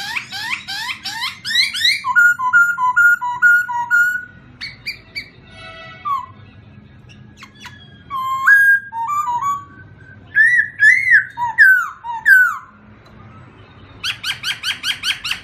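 Songbirds singing in varied whistled phrases: quick rising sweeps, a run of repeated clear notes, scattered calls and a fast trill near the end, over a faint steady low background.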